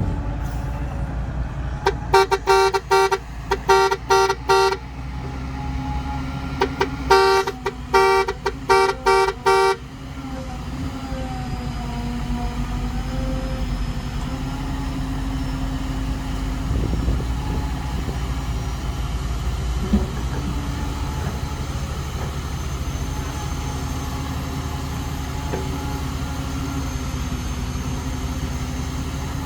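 Two quick runs of short horn toots, each lasting about three seconds, in the first ten seconds, over the steady drone of heavy diesel engines running at a dirt-loading site; after the toots only the engine drone continues.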